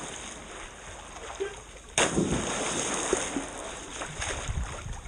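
Pool water splashing and sloshing right at a camera sitting at the water's surface. A sudden louder splash comes about two seconds in as someone jumps into the pool, and the churned water then keeps splashing.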